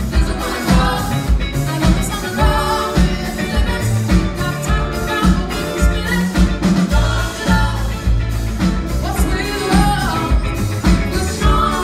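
Live pop-soul band: a woman's lead vocal over acoustic guitar, upright bass and drum kit, with a steady beat.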